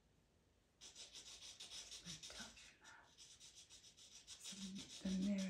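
Pastel pencil strokes rubbing and scratching across PastelMat paper in quick, short repeated strokes, starting about a second in. A brief voice sound comes near the end.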